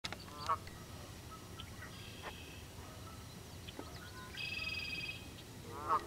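Canada goose honking twice, once about half a second in and again near the end, with other birds giving higher buzzy calls in between.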